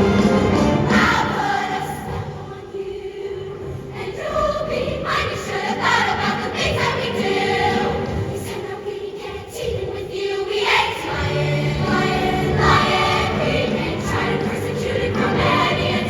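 Show choir singing with a live band accompaniment; no words come through, so the voices carry long sustained or wordless notes over the music.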